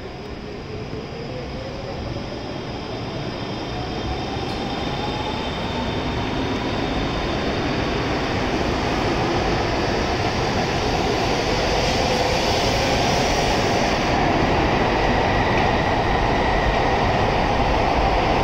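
JR Central N700S Shinkansen trainset pulling out of the station and accelerating: the traction motors' whine rises steadily in pitch as it gathers speed, over a rumble of wheels and running gear that grows louder throughout.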